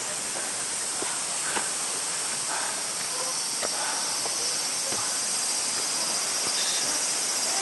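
Mountain valley stream rushing over rocks: a steady, hissing wash of water with a few faint splashes.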